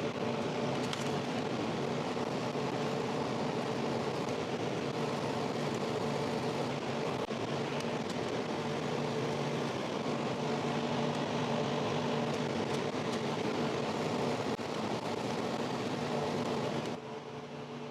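A steady mechanical hum of a running motor, with a few held low tones, that drops off about seventeen seconds in.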